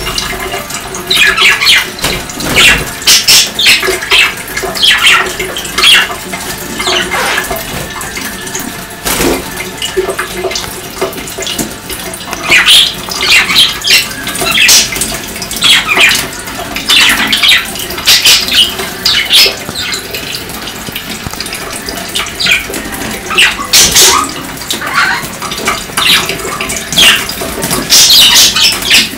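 Kitchen tap running into a stainless steel sink, with repeated splashing and wing flutters as budgerigars bathe under the stream, and budgie chirps among them.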